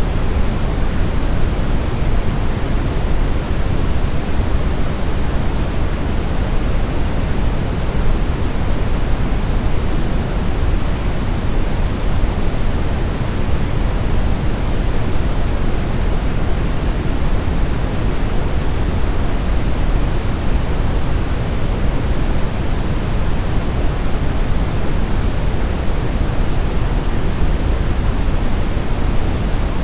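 Brown noise: a steady, even hiss-like rumble weighted heavily toward the low end, with no changes or events.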